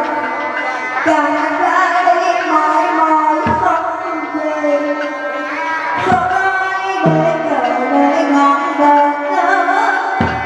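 Hát bội (Vietnamese classical opera) music: a sliding melodic line with several pitches running over it, and four low drum strokes spaced a few seconds apart.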